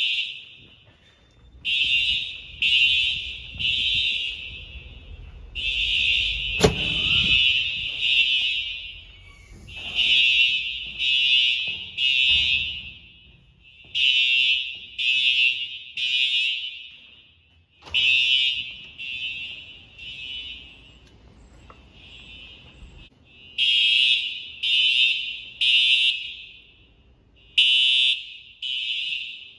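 Simplex TrueAlert fire alarm horns sounding the temporal-3 evacuation pattern, very loud: three short, high-pitched blasts, a pause, and the pattern repeats. Where several horns run slightly out of step, the blasts blur together. A sharp knock about a quarter of the way in.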